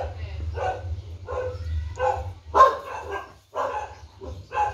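A dog barking over and over, about two barks a second, the loudest bark a little past halfway.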